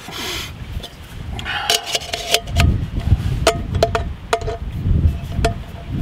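Metal parts of a compact camping stove system clinking as the cooking pot and its pieces are fitted together over the gas canister: a series of sharp clinks, each with a short metallic ring. Wind rumbles on the microphone underneath.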